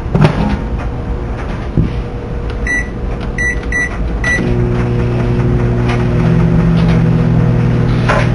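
Microwave oven being started: a knock like the door shutting, four short high keypad beeps, then the oven begins running with a steady low hum.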